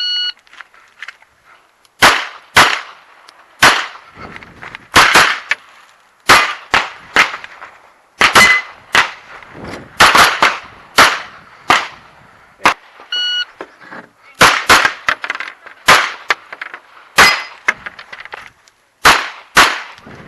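Electronic shot-timer beep, then a fast string of pistol shots, singly and in quick pairs, with some steel targets clanging as they are hit. A second timer beep about 13 seconds in starts another string of shots.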